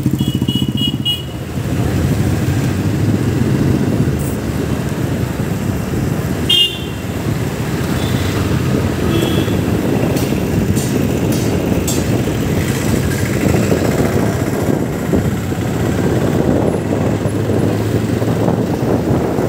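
Motorcycle engine running as the bike rides slowly through traffic, with steady road noise. Short vehicle horn toots come in a quick series near the start and again about six and nine seconds in.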